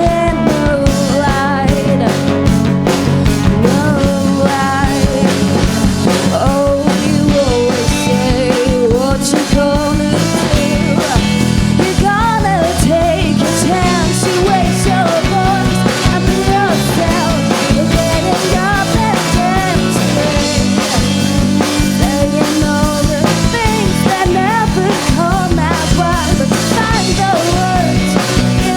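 Indie rock band playing at full volume: a drum kit keeps a steady beat under guitars, with a wavering melodic lead line on top.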